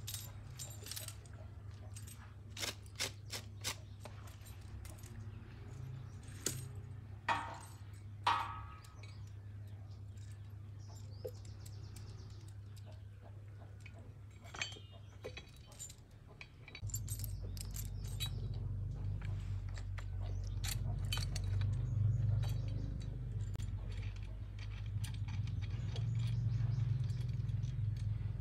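Small metal clinks and taps of hand tools and parts being handled, scattered and irregular, over a steady low hum. About two-thirds of the way through, a louder steady low rumble sets in and carries on.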